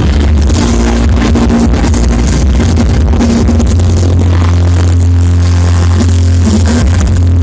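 Loud electronic dance music with a heavy, steady bass, played through a big sound system.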